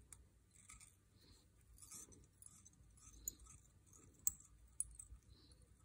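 Near silence with faint rustling and a few light ticks, the clearest around three and four seconds in, from thread being wrapped onto a hook held in a fly-tying vise.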